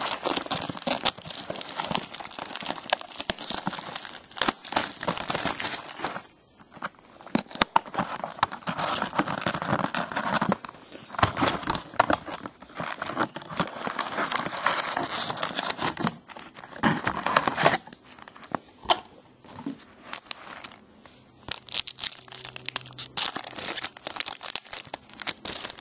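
Cellophane shrink wrap crinkling and tearing as it is stripped off a sealed trading-card box, followed by the box being opened and the foil card packs handled, in stop-start bursts of crackle with brief pauses.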